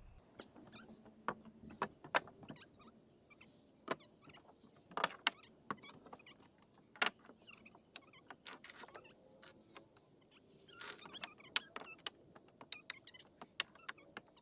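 Irregular light clicks and knocks of framing lumber and tools being handled and set down, with a short stretch of rustling and scraping about eleven seconds in.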